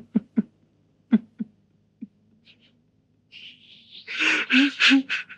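A few soft clicks, then near the end a loud, breathy outburst of a person's voice lasting about a second.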